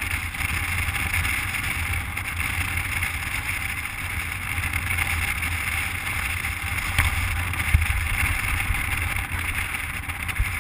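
Wind rushing and buffeting over a microphone held out of a moving car's window, a steady low rumble with hiss, over the car's road noise.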